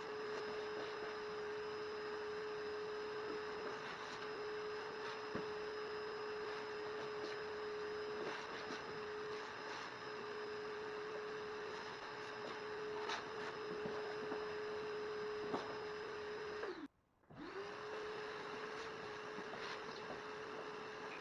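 A steady, even hum with one clear pitch over a low hiss, and a few faint clicks and knocks. Everything cuts out for a fraction of a second about 17 seconds in, then the hum resumes.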